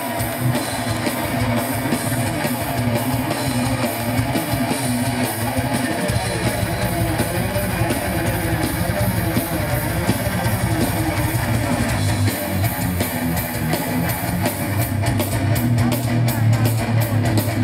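Live hard rock band playing: an amplified electric guitar leads over bass and drums, the guitarist's feature spot after his introduction.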